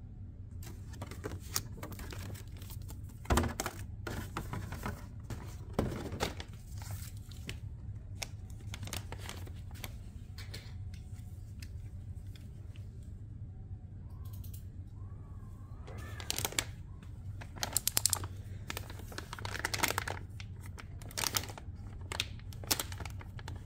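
Clear plastic packaging crinkling and rustling as it is handled, in irregular bursts that are loudest about three and six seconds in and again from about sixteen to twenty seconds in, over a low steady hum.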